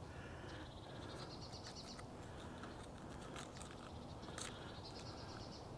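A small songbird singing two fast trilled phrases, each rising slightly in pitch, about three seconds apart, with a few faint clicks.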